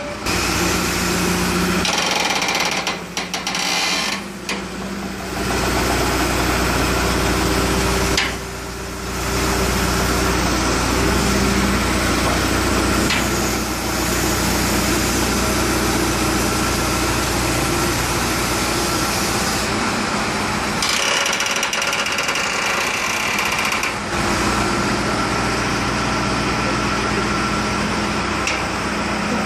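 Diesel engine of a Bell backhoe loader running steadily close by while its hydraulic arm holds and shifts a suspended stone load; the engine note changes a few times, around a few seconds in and again about two-thirds of the way through.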